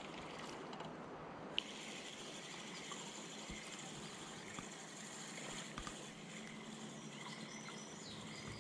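Faint steady outdoor riverside ambience with insects buzzing, broken by one sharp click about a second and a half in and a few faint bird chirps near the end.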